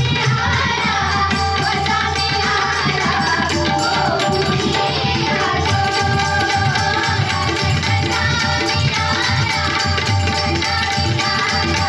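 Pakhwaj and tabla drumming a dense, continuous rhythm under steady harmonium tones, as accompaniment to a Marathi gaulan devotional song.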